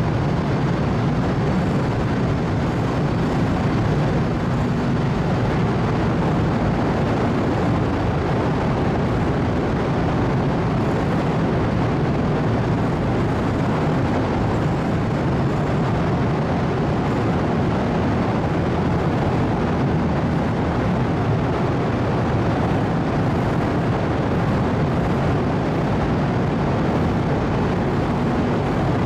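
Steady, loud machinery rumble and hiss inside a car ferry's enclosed vehicle deck while the ship is still under way, coming alongside its berth.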